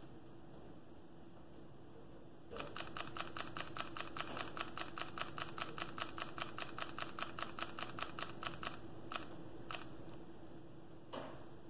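Fujifilm X-H1's mechanical shutter firing in continuous burst mode: a rapid, even string of clicks lasting about six seconds, then two single clicks and a softer click near the end.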